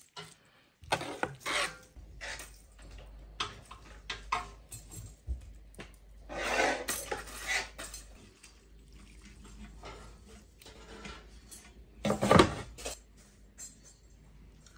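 A metal spoon scraping and clinking against steel cooking pots as cooked greens are spooned from one pot into another, in several separate clattering bursts with quieter gaps between.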